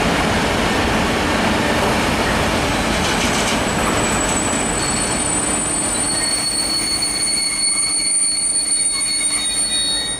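Container freight train hauled by a Traxx E.484 electric locomotive passing at speed, a loud steady rumble of wheels on rail. From about halfway through, high steady wheel squeal rises over the rumble as the wagons roll by.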